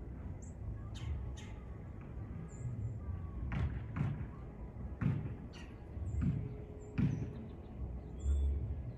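Low background rumble with about eight irregular sharp knocks or thuds and a few short, high chirps.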